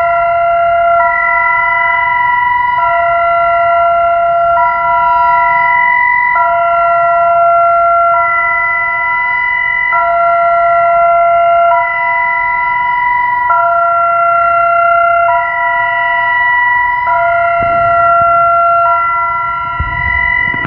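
Bulgarian emergency warning siren sounding its old signal: two steady tones alternating back and forth, changing about every two seconds, with no rise or fall in pitch.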